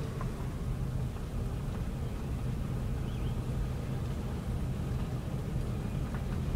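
Steady low hum of a car driving, heard from inside the cabin: engine and road noise.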